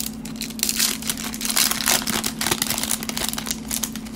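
Cellophane wrapper of a trading-card cello pack being torn open and crinkled by hand, a dense run of crackles that stops near the end.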